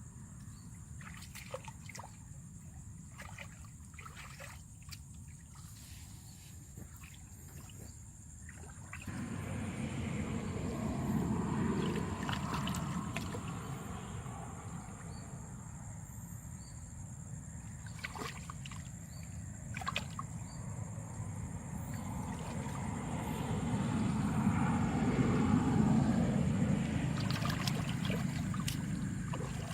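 Water sloshing and trickling, with scattered clicks and knocks; it grows louder about a third of the way in and swells again later on.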